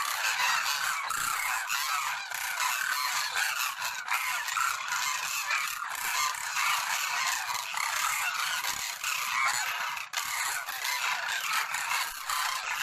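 A flock of captive cranes calling continuously, many voices overlapping into a dense chatter.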